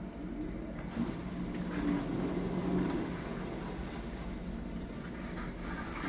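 Olympus OER-Elite endoscope reprocessor running with a steady hum, its pump working through a water-flow step of its filter and line procedure.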